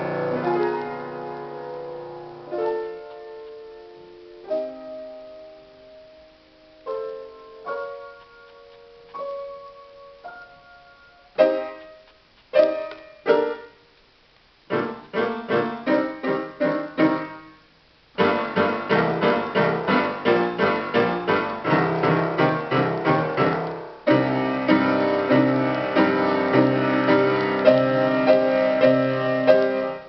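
Solo piano playing: a held chord dies away into slow, sparse notes, which quicken and, after a short break, turn into fast, dense repeated chords.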